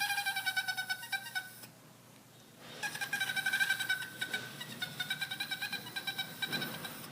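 A dog whining in two long, high cries with a fast pulsing flutter; the second begins about three seconds in and lasts several seconds.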